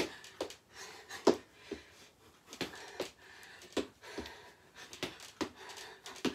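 Trainer-clad feet landing on a wooden floor during quick step-overs of an aerobic step, sharp footfalls coming roughly in pairs a little under a second apart, with hard breathing between them.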